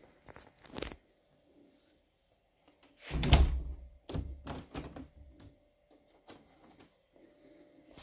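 A dull, deep thump about three seconds in, followed by several lighter knocks and a few small clicks.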